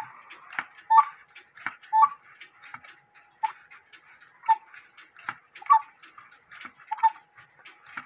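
German-made quarter-hour cuckoo clock's mechanical movement ticking steadily: a louder tick about once a second with a softer one between, each with a short metallic ring.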